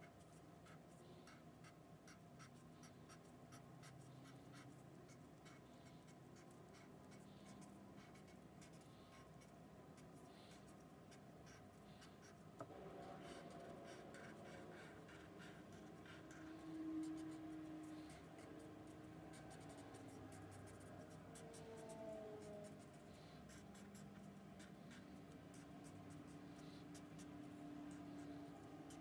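Felt-tip marker scratching faintly across paper in a quick run of short strokes, drawing zigzag lines.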